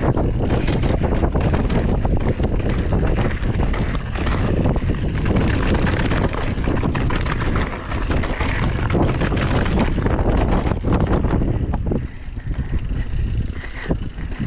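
Mountain bike descending at speed: wind buffeting the microphone, with the steady rattle and clatter of the tyres and frame over the trail surface. It eases off and gets quieter near the end.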